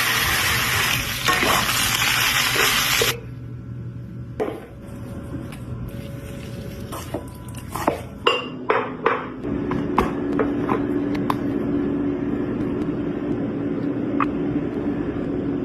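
Kitchen cooking sounds: a loud hissing rush that cuts off suddenly about three seconds in, then scattered clinks and taps of utensils against dishes and pans, with a steady hum from about halfway on.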